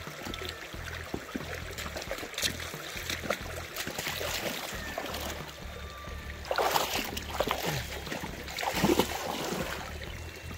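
Creek water running, with scattered knocks and scrapes of rocks and gravel, a few louder clatters around the middle and near the end.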